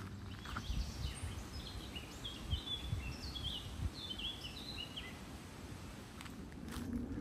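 A songbird sings a quick, varied string of short high chirps for about four seconds, over a steady low rumble and a few soft footfalls.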